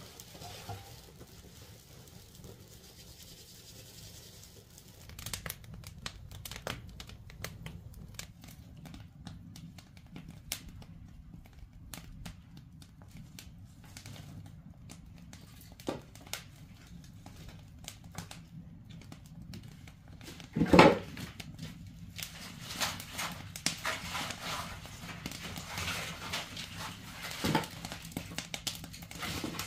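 Wood fire crackling and popping in a traditional Korean firebox (agungi) heating an ondol floor, with sharp pops of burning sticks that grow busier toward the end. A loud knock about two-thirds of the way through.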